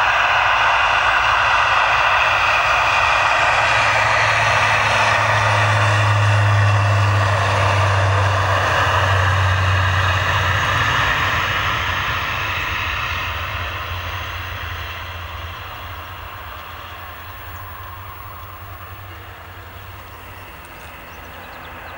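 Bombardier Dash 8-402's two Pratt & Whitney PW150A turboprops at takeoff power: a loud propeller drone with a strong low hum that peaks as the airliner rolls past, dropping slightly in pitch. From about halfway it fades steadily as the aircraft lifts off and climbs away.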